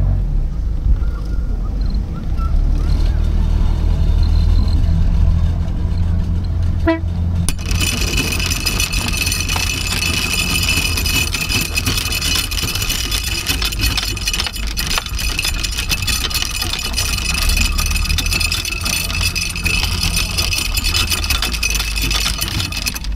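Tour boat's engine running with a steady low drone. From about seven seconds in, a loud, even high hiss joins it.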